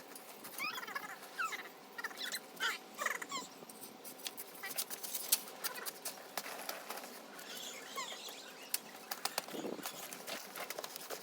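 Birds chirping in short rising and falling calls for the first few seconds, then a scattered run of sharp clinks and scrapes from digging with a shovel in stony ground.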